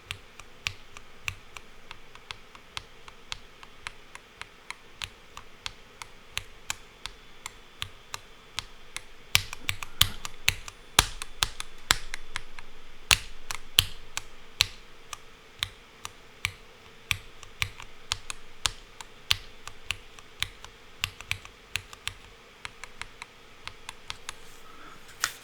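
Single key presses on a Monsgeek M1 V5 TMR keyboard, switching between Geonworks Raw HE magnetic switches and Cherry MX Black Hyperglide mechanical switches, each press a sharp clack. The clacks come about one or two a second, with a denser, louder run from about 9 to 15 seconds in. The magnetic switches sound much quieter than the mechanical ones.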